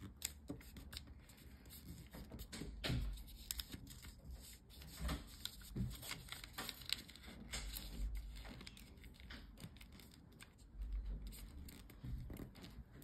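A sheet of origami paper being folded and creased by hand on a wooden tabletop: faint, irregular rustles and crinkles of the paper, with soft taps as fingers press the folds flat.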